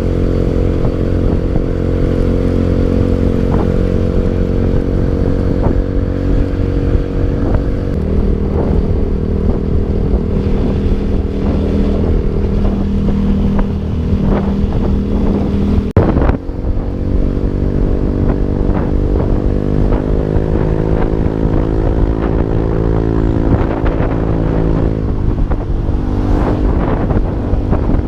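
Motorcycle engine running under way; its pitch shifts several times, with a sudden break about 16 seconds in and a slow rise after it.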